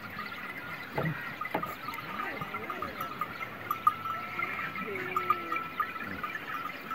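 A grazing flock of sheep and goats bleating faintly, twice, with a thin steady high tone behind.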